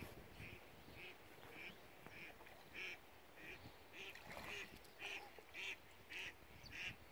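Faint duck quacks, evenly repeated about twice a second.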